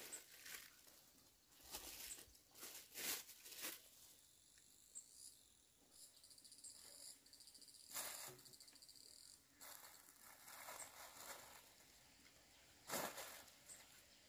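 Plastic bags crinkling and rustling in scattered short bursts as wild honeycomb slabs are handled on a sack, with a faint high insect trilling in the middle stretch.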